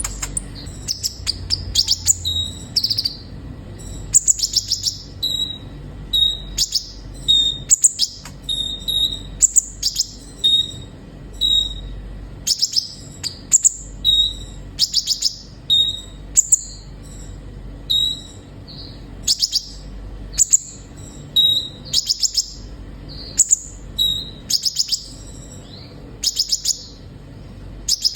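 Sunbird (kolibri ninja) singing: a string of short, high, sharp chirps and chattering trills in brief phrases about once a second, many ending on a clear note.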